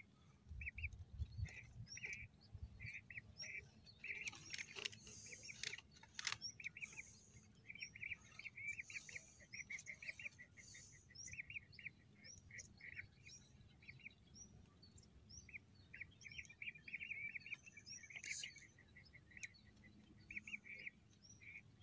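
A flock of whistling ducks calling: many short, high whistled chirps in quick succession that overlap and keep going. A few brief rustles come about four to seven seconds in.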